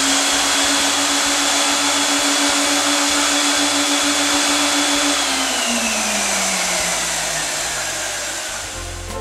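Suction motor of a home-built cleaning system drawing air out of a plastic-wrapped feather pillow through hose fittings: a loud rushing hiss with a steady whine. About five seconds in, the whine slowly drops in pitch.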